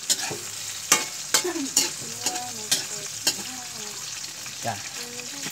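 A metal spatula stirring and scraping lemongrass and garlic frying in a stainless steel wok over a strong fire, with a steady sizzle and about half a dozen sharp clicks in the first three and a half seconds.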